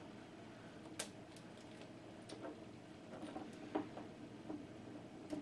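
Faint, scattered small clicks and light rustling of hands handling a cable, working a rubber band off a coiled VGA cable; the sharpest click comes about a second in.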